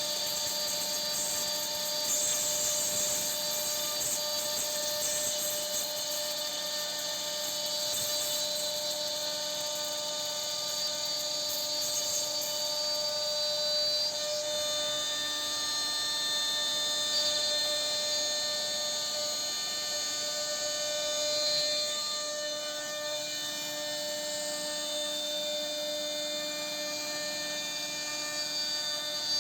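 CNC router spindle running steadily while cutting wood: a continuous whine of several held tones over a hiss.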